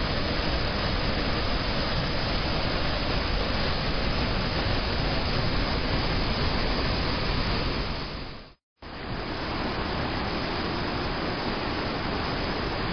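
Flood-swollen creek rushing and churning, a steady roar of high, fast water. It fades out briefly about two-thirds of the way through, then comes back at the same steady level.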